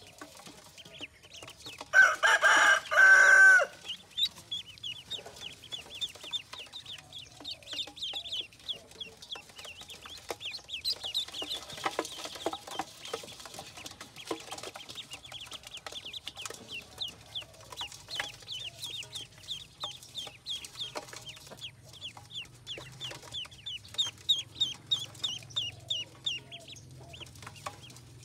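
A group of ducklings peeping continuously in rapid, high chirps. About two seconds in, a loud pitched bird call lasting over a second rises above them.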